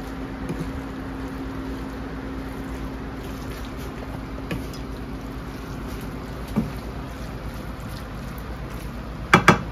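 Lo mein noodles and vegetables being stirred and tossed with a wooden spatula in a nonstick frying pan on low heat, giving a faint steady sizzle with a few soft scrapes over a steady low hum. Two sharp knocks close together near the end.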